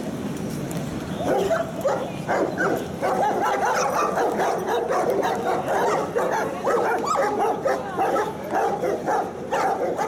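Police German shepherds barking and yelping, starting about a second in, with the barks coming rapidly and overlapping.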